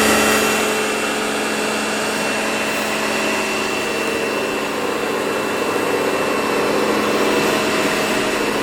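Karcher K2 electric pressure washer running steadily, its motor and pump humming under the hiss of water spraying onto the driveway.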